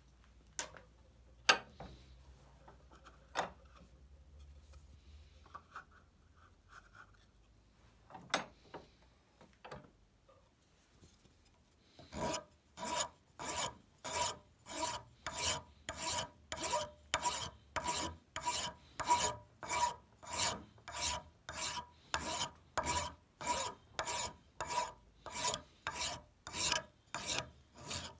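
Wood rasp stroked back and forth across the end of a hickory hammer handle where it protrudes from the hammer head's eye. A few scattered knocks come first, then about twelve seconds in steady rasping starts, roughly one and a half strokes a second.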